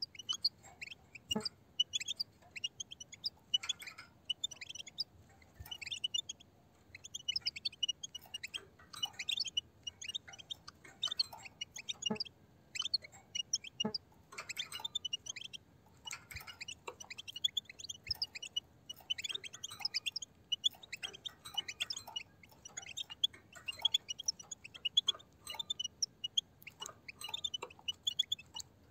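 A flock of European goldfinches twittering without pause in quick, high chirps while feeding on the ground. Scattered sharp clicks run through it as the birds peck and crack seeds.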